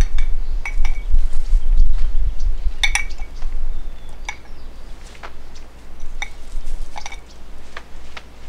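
Low, uneven rumble of wind buffeting the microphone, with a dozen or so scattered light clicks and clinks, a few of them with a short ring.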